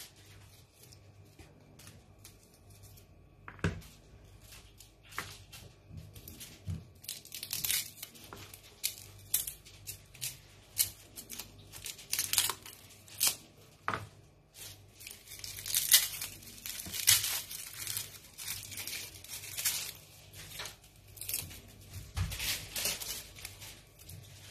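Garlic cloves being peeled with a small knife: the dry papery skins crackle and tear in irregular short bursts, with light scrapes and clicks of the blade.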